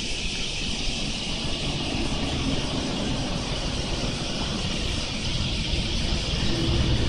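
Outdoor roadside ambience: a low rumble of road traffic that grows louder toward the end, over a steady high-pitched drone of insects.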